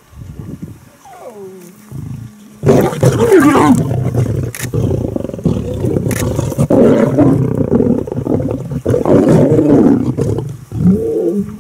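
Lions snarling and growling loudly while squabbling over a kill. The harsh, rasping sounds start about two and a half seconds in and go on almost without a break until near the end.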